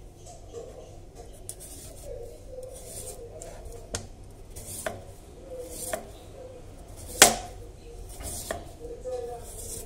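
Large chef's knife slicing through a wedge of raw pumpkin on a cutting board. The blade rasps through the firm flesh and rind, with several sharp knocks as it strikes the board; the loudest knock comes about seven seconds in.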